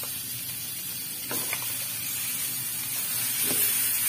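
Raw minced meat sizzling as it hits a hot non-stick frying pan of fried spice paste, with a few knocks and scrapes of a wooden spatula stirring it. The sizzle grows louder in the second half.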